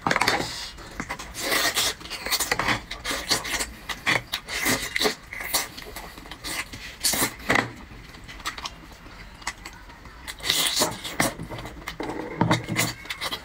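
Close-miked eating sounds: irregular scrapes and clicks as a big scallop is lifted from its shell and pulled apart by hand, with chewing as the meat is eaten.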